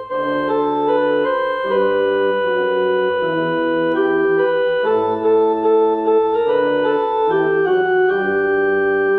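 Casio electronic keyboard on a church-organ tone, playing a slow hymn introduction: sustained melody notes and chords over one bass note at a time, changing every second or so.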